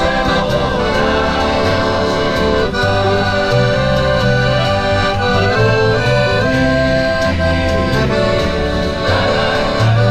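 Accordion and guitars playing a traditional tune together, with a bass line moving note by note underneath.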